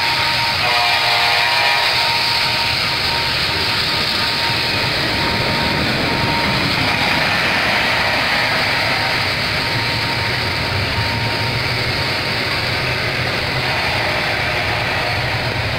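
Double-stack intermodal freight cars rolling past on the rails: a steady rumble and rush of steel wheels on track, with a faint thin high whine through the first half.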